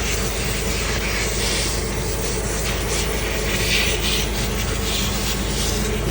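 Kirloskar 125 kVA diesel generator engine running steadily at a constant speed.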